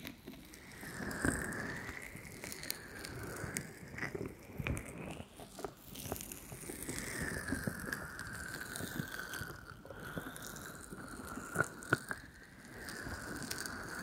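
Fingers massaging cream into the silicone ears of a 3Dio FS XLR binaural microphone: close, wet rubbing and squishing with many small crackles and clicks.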